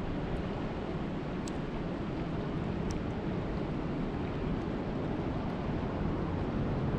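Steady rain, an even, dense hiss with a couple of faint sharp ticks of drops, one about one and a half seconds in and one about three seconds in.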